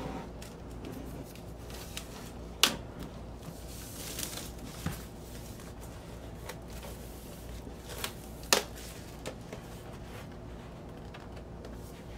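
Plastic shrink wrap being torn and peeled off a vinyl LP jacket, crinkling, with two sharp clicks about two and a half seconds in and again about eight and a half seconds in.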